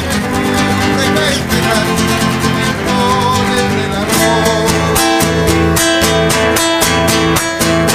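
A man singing a folk song to his own acoustic guitar. About halfway through the voice drops out and the guitar goes on alone with brisk, even strumming.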